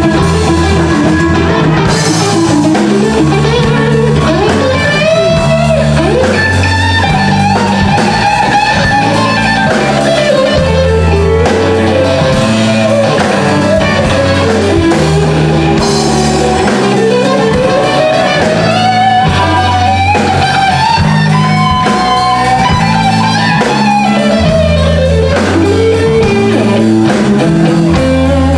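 Live blues band: a Stratocaster-style electric guitar plays a lead solo full of bent notes that slide up and down in pitch, over a stepping bass guitar line and drums.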